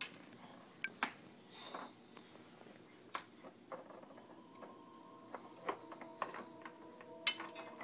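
Baby's wooden activity cube clacking as the baby bats at it: wooden beads knocking on the wire bead maze, heard as scattered sharp clicks. Soft background music comes in about halfway through.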